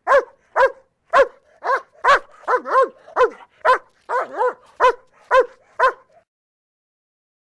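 German Shepherd barking repeatedly, about two barks a second with a few in quick pairs, stopping about six seconds in.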